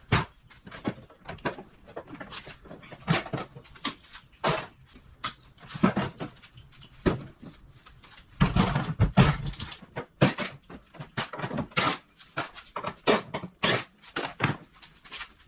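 Irregular metal clanks and knocks from an air conditioning unit being dismantled by hand, with a denser run of knocks about halfway through.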